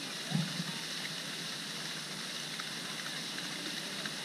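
Steady hiss of a fountain's water spray splashing into a pond, with a brief low thump about half a second in.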